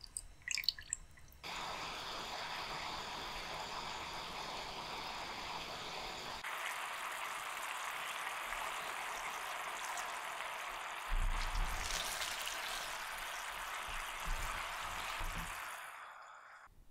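Thick soy-and-sugar sauce dripping from a ladle into a pan, then boiling in the pan with a steady bubbling sizzle. Some low thumps come in about two thirds of the way through, and the sound stops abruptly shortly before the end.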